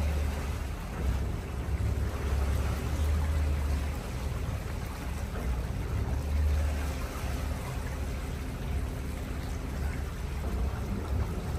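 Wind buffeting the microphone: a low, uneven rumble that swells and eases every second or two over a steady hiss.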